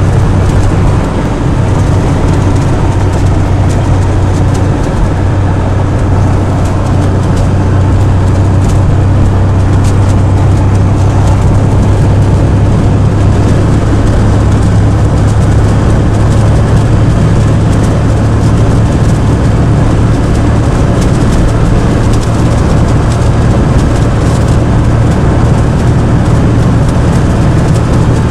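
Car driving at road speed: a steady, loud drone of road and engine noise that holds unchanged throughout.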